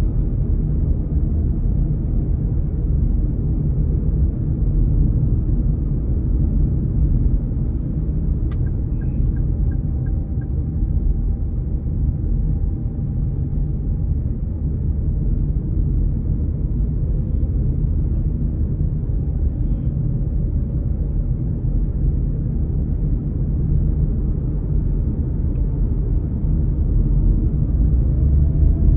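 Steady low rumble of tyre, road and engine noise heard inside a moving car's cabin, with a faint whine coming and going and one brief click about eight seconds in.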